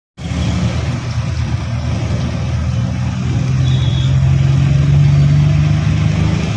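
Vehicle ride: the motor of the vehicle being ridden in runs steadily with a low hum, under road noise. The hum swells a little about five seconds in.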